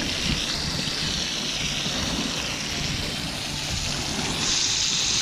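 Fish fillets sizzling in hot oil in a frying pan over a campfire, a steady hiss that grows louder near the end, with a low rumble underneath.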